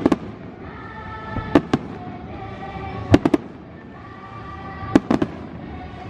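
Fireworks shells bursting at a distance, in quick groups of two or three sharp bangs about every second and a half.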